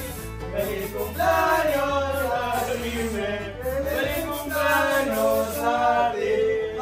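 Background music: a song with a male singing voice over a steady, evenly repeating bass beat.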